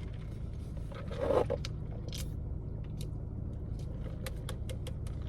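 Close-up eating sounds: chewing, with a run of short mouth clicks and crunches near the end and a brief murmur about a second in, over the steady low hum of a car cabin.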